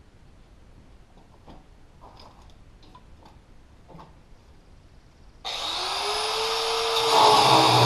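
A few faint handling clicks and knocks, then about five and a half seconds in an angle grinder starts, its whine rising as it spins up. About a second and a half later it bites into steel and gets louder and rougher as it starts cutting.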